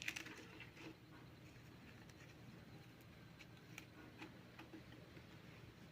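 Near silence: room tone with a steady low hum and a few faint, irregular clicks.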